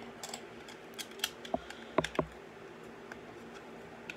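Plastic LEGO pieces clicking and snapping as a 6x6 tile is pressed down hard onto the build, with scattered light clicks and a quick cluster of sharp snaps about two seconds in.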